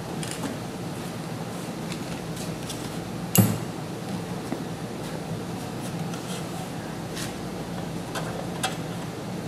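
Hand tools and metal parts handled on a workbench: one sharp knock about three and a half seconds in, then scattered light clicks, over a steady low hum.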